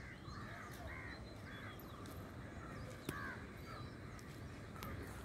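Crows cawing repeatedly, short calls every half-second to a second, over a steady low rumble, with faint high chirps of small birds. A single sharp click about three seconds in.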